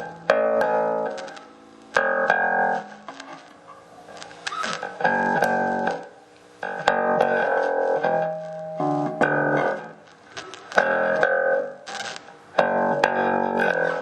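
Glarry Jazz-style electric bass played through a small amp with both pickups on and volume and tone all the way up: a repeated phrase of plucked notes, each starting with a sharp attack about every two seconds, with short gaps between. The sound is bright, with little deep low end.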